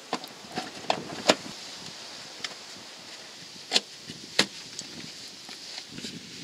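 Plastic wheel arch liner of a Renault Clio 2 being handled and pushed into place: scattered light clicks and knocks, the sharpest about a second in and twice around four seconds in, over a faint steady hiss.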